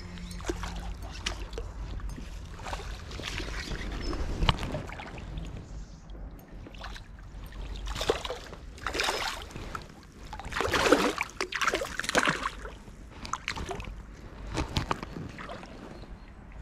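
A hooked brown trout splashing at the water's surface as it is played and brought in to the bank, in several irregular bursts of splashing that are loudest in the second half.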